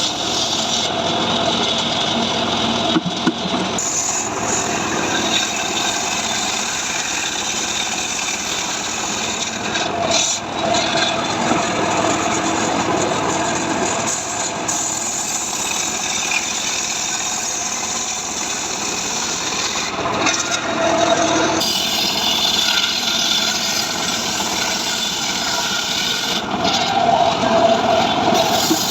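Chainsaw running under load as it rips along dry mahogany, a steady loud cutting noise that shifts in tone a few times as the cut goes on.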